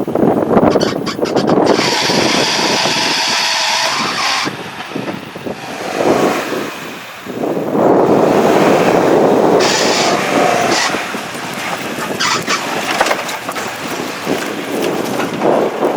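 Lifted Toyota 4Runner on 37-inch mud tyres working over a rough off-road trail: engine and tyre noise that swells and eases, with clusters of knocks and scrapes.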